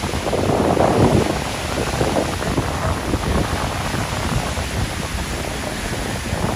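Sea surf breaking and washing up a sandy beach, a continuous rushing wash with a louder surge about a second in. Wind rumbles on the microphone underneath.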